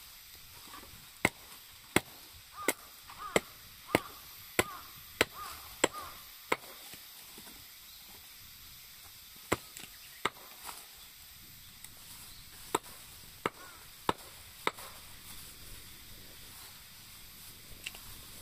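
Wood being chopped: sharp strikes about one and a half a second, nine in a row, then after a pause two more, then four more.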